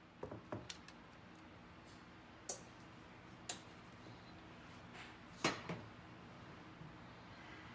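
Several short, sharp clicks and taps over a faint, low, steady hum: a quick cluster in the first second, then single ones about two and a half, three and a half and five and a half seconds in, the last the loudest.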